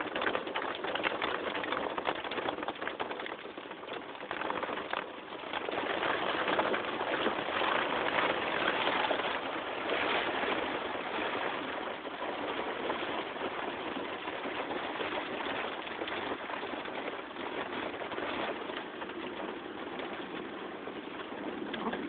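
Heavy rain beating on a car's roof and windshield, heard from inside the car during a windstorm, as a steady dense hiss. The downpour swells heavier about five or six seconds in and eases off again after about twelve seconds.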